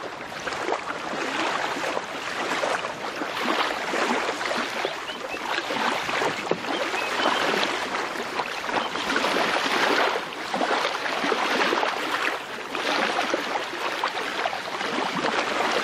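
Small waves lapping and washing onto a sandy beach, the wash swelling and easing every two to three seconds.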